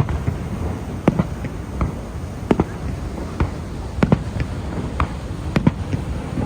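Fireworks going off: about a dozen sharp bangs at irregular intervals, some in quick pairs, over a steady low rumble.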